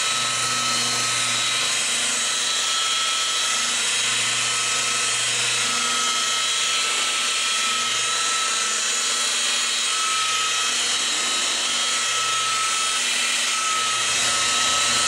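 DeWalt rotary polisher running steadily with a foam pad pressed on a car's painted roof, with a steady motor whine and a hum that wavers slightly as the pad loads and unloads on the panel. The scuffing noise under the pad is overspray particles being worked off the paint.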